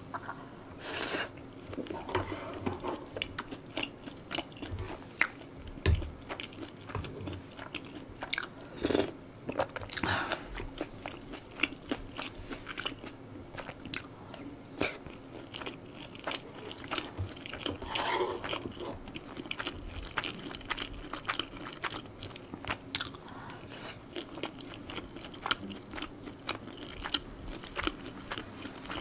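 Close-miked mouth sounds of eating stir-fried spicy pork and butter soy-sauce egg rice: steady chewing and biting, with many short sharp clicks.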